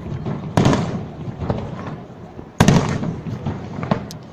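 Fireworks exploding: two loud bangs about two seconds apart, each trailing off in a long rumbling echo, with smaller crackles and pops in between.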